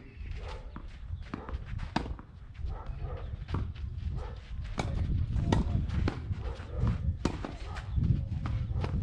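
Wind rumbling on the microphone, with irregular sharp knocks through it.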